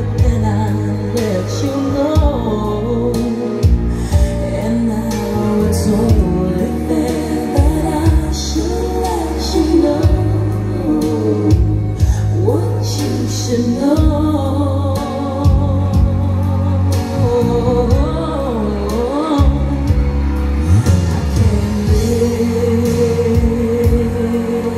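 A song with a singing voice over a strong bass line and a regular beat, played back through JBL LX-44 floor-stand speakers driven by an Onkyo A-9310 integrated amplifier.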